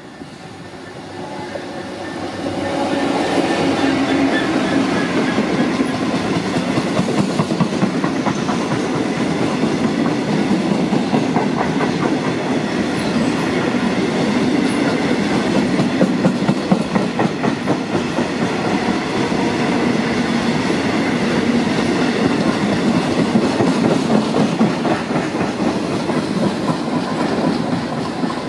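Diesel freight locomotive running past with a long train of covered steel-coil wagons. The engine grows louder over the first few seconds as it passes, then the wagons' wheels give a long, steady clickety-clack over the rail joints, easing off slightly near the end.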